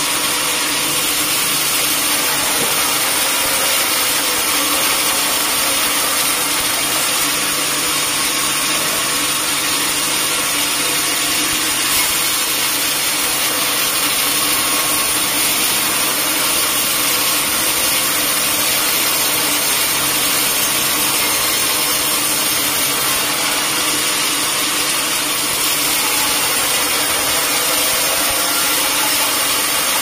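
Band sawmill running, its blade sawing lengthwise through a teak log in a steady, unbroken noise with a constant low hum underneath.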